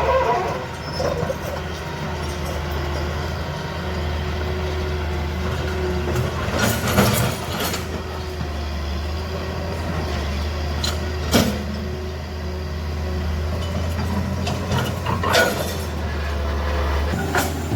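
Heavy diesel machinery running steadily with a low drone, with a few short metallic knocks or clanks, about seven, eleven and fifteen seconds in.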